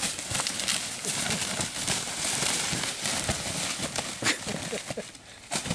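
Shot wild turkey gobbler flopping in dry leaf litter: irregular rustling and thrashing with sharp thumps, the sharpest about four seconds in. These are the bird's death throes.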